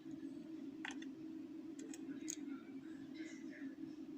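Light metallic clicks and scraping of a lock pick and tension tool working the pins of a Euro cylinder lock, a few separate clicks with a short stretch of scratching, over a steady low hum.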